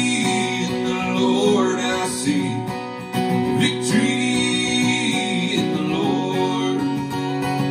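Acoustic guitar strummed steadily in a country rhythm, with a man's low singing voice over it.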